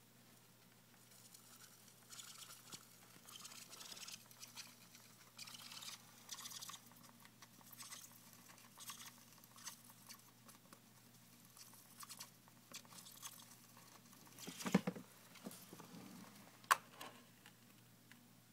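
Teddy bear hamster scrabbling and digging in the litter of a corner litter pan and the surrounding wood-shaving bedding: faint, irregular bursts of scratching and rustling, with two sharper knocks near the end.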